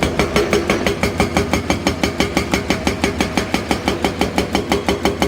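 Toy excavator running, a rapid regular clicking about seven times a second over a steady hum, stopping suddenly near the end.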